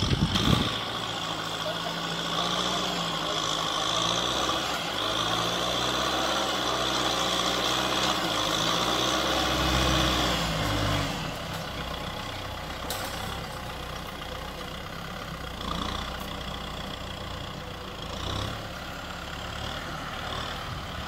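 Kubota M6040SU tractor's diesel engine working as its front blade pushes soil, the engine note wavering up and down as the load changes. It is loudest just before halfway, then eases off and runs somewhat quieter.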